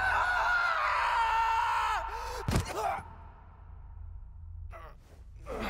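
Animated cartoon soundtrack: a long held vocal cry or groan that bends down and breaks off about two seconds in, then a single hard thud. After the thud it goes quiet apart from a few faint breathy swishes near the end.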